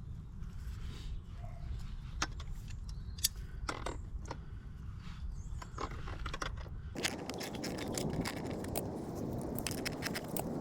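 Scattered light clicks, knocks and scrapes of tools and plumbing fittings being handled, over a steady low rumble. About seven seconds in, a coarse, dull scraping noise starts and carries on.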